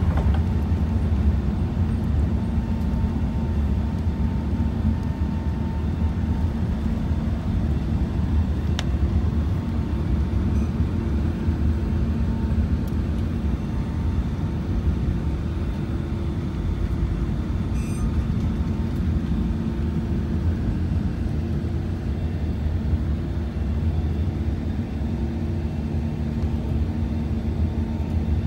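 Cabin noise inside an Airbus A380-800 at takeoff and in the initial climb: the four engines' steady low roar, with a few steady hums running through it.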